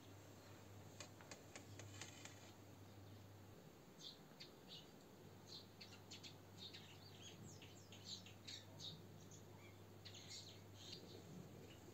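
Near silence with faint, scattered high chirps of small birds, most of them in the second half.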